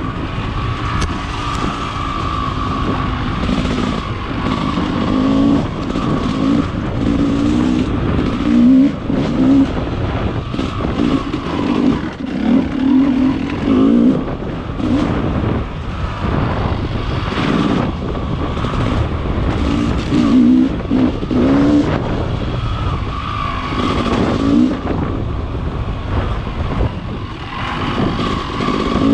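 Dirt bike engine pulling along a rough trail, its revs rising and falling in short bursts as the throttle is worked, over a steady rushing noise.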